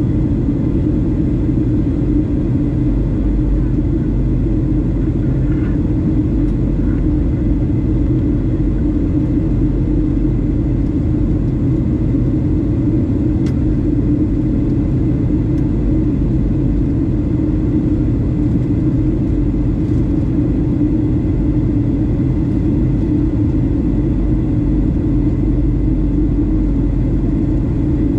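Steady rumble inside the cabin of a Boeing 737-700 descending on approach: its CFM56-7B engines and the airflow over the fuselage, with a faint high steady tone over the top.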